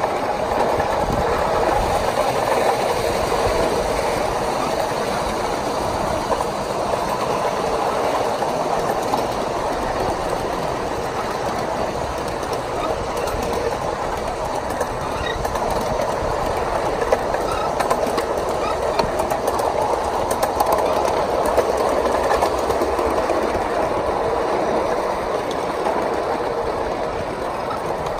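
1-inch-scale ride-on miniature train rolling steadily along its track, heard from on board: a continuous rumble of the cars' wheels on the rails, with occasional faint clicks over the rail joints.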